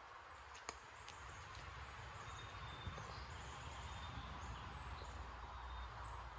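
Faint outdoor woodland ambience: a steady low rumble under a soft hiss, with a few short, high bird chirps repeating and a single sharp click near the start.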